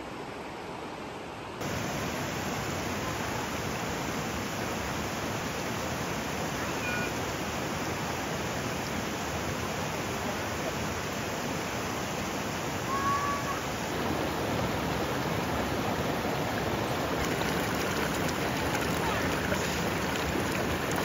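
Shallow mountain creek rushing over rocks: a steady rush of water that comes in suddenly about a second and a half in.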